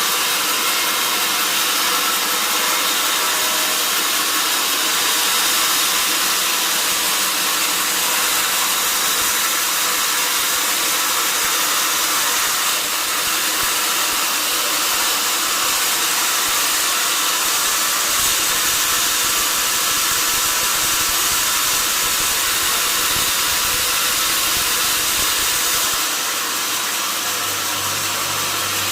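Sawmill saw running steadily through mahogany wood, a dense even hiss with little low end. It dips slightly near the end.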